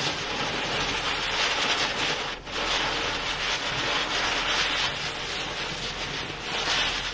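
A ground spinner (chakri) firework burning in a puddle of water, hissing steadily as it spins and throws sparks. The hiss breaks off for a moment about two and a half seconds in.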